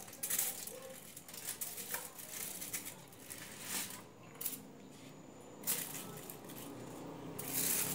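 Aluminium foil crinkling in short, irregular rustles as pieces of pork rib are picked up and laid on it, the loudest rustle near the end.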